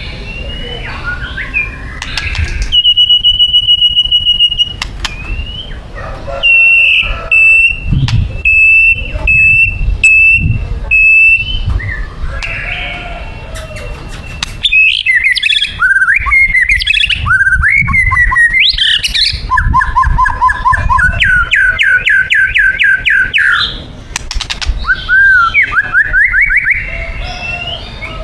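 White-rumped shama (murai batu) singing a loud, varied song: a long held whistle, runs of repeated notes, sweeping slurred phrases and a fast rattling trill.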